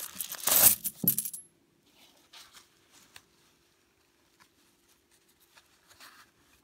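A heap of old metal coins clinking and jingling as a hand stirs through it, dense and loud for about the first second and a half, then stopping. After that come only faint rustles and light clicks as old paper banknotes are handled.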